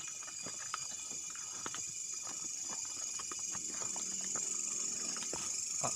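Irregular footsteps and small crackles on the forest floor over a steady, high-pitched night insect chorus.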